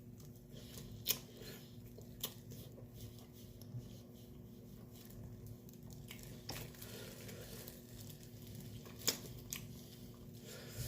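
A person eating braised pork back ribs: faint chewing with a few short, sharp clicks scattered through, over a steady low hum.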